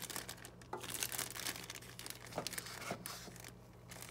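Plastic zip-top bag, with newspaper inside, crinkling and rustling in irregular bursts as garden soil is worked into it by hand. The crinkling eases off near the end.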